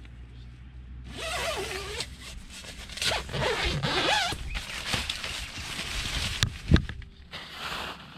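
Vango Pulsar 300+ tent door zip being pulled open in several long rasping strokes, with tent fabric rustling. A sharp thump comes about two-thirds of the way through, the loudest moment.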